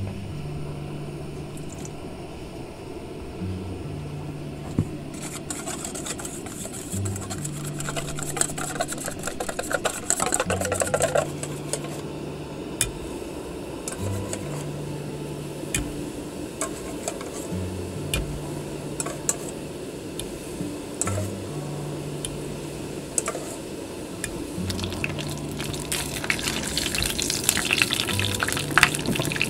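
Hot oil sizzling and crackling in a frying pan on a portable gas stove as minced garlic fries. The sizzle starts about five seconds in, is strongest around ten seconds and grows again toward the end. Background music with a repeating low bass line runs throughout.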